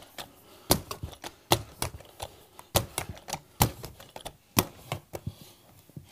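Carpet knee kicker struck repeatedly by the knee, giving a series of sharp clacks, the heaviest about once a second with lighter knocks between, as its toothed head pushes the carpet onto the tack strip along the wall.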